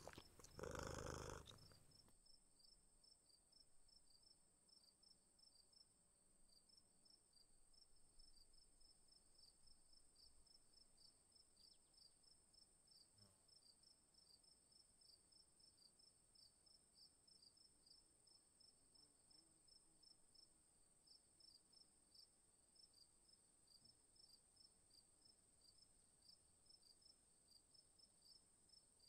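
Field crickets chirping faintly in a steady, regular rhythm over a continuous high insect trill. There is one brief louder noise about a second in.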